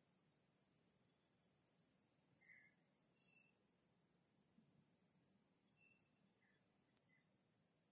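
Near silence: room tone with a faint, steady high-pitched hiss.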